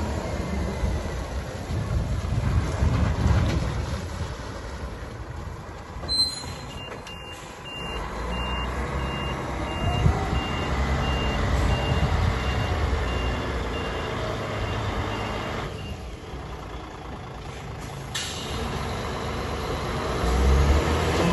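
DAF CF85.410 8x4 tipper truck's diesel engine running as it drives off and manoeuvres. Its reversing alarm sounds a steady run of high beeps from about six seconds in, lasting around nine seconds. The engine is louder at the start and again near the end as the truck comes back.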